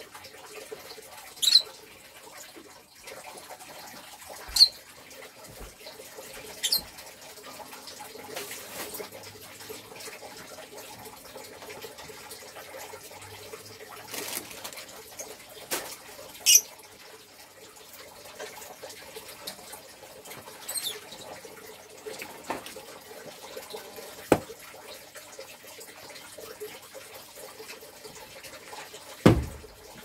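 Caged lovebirds giving short, sharp, high chirps, about half a dozen spread out, over a steady hiss. A loud knock comes near the end.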